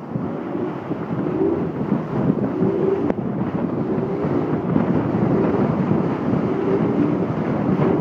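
Muddy river rapids rushing and splashing against a boat's hull as it runs through them, with wind buffeting the microphone. Underneath, a motor drone rises and falls.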